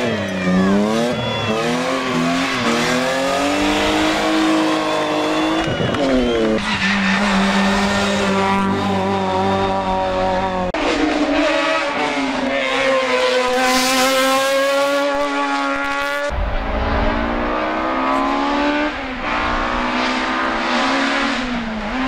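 Racing car engines at high revs, one car after another, with the pitch climbing and dropping at each gear change. Tyre squeal at the start comes from a BMW E36 drifting through a hairpin.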